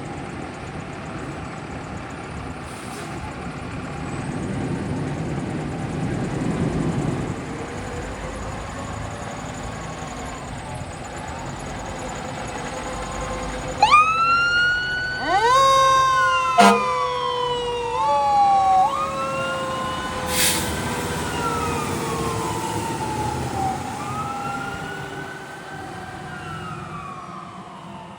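Fire ladder truck on an emergency run: a low engine rumble for the first half, then about halfway in its siren starts, wailing up and down in pitch with two sharp loud blasts mixed in, before it fades off near the end.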